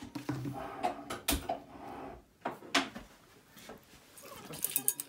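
A few sharp knocks and clicks of household objects being handled, about a second apart, with a quick run of clicks near the end.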